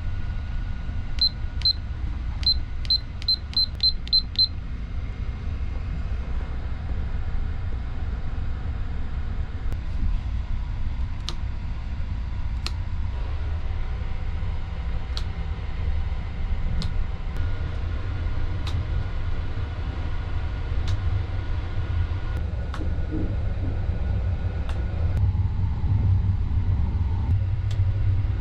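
Short high beeps from a sleeper compartment's clock-and-alarm control panel as its buttons are pressed, about nine in the first four and a half seconds, over the steady low rumble of the moving train. Faint sharp clicks follow every second or two.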